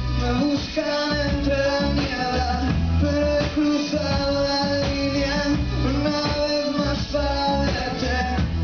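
Rock band playing live: electric guitars, bass and drums with a male lead vocal. The low end comes in right at the start.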